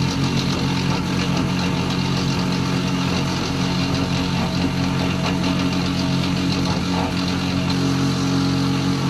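Electric motor of a Grundfos SEG grinder pump running with a steady, unchanging hum.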